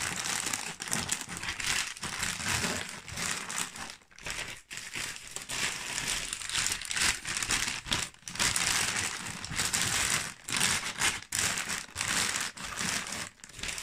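Plastic shopping bags crinkling and rustling as they are crumpled and pushed into a cardboard box as packing fill, in stretches with short breaks.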